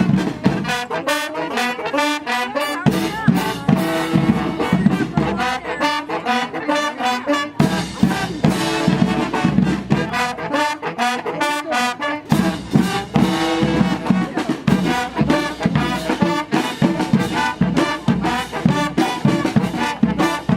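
Street brass band playing: trumpets and trombones carrying the tune over a steady drum beat.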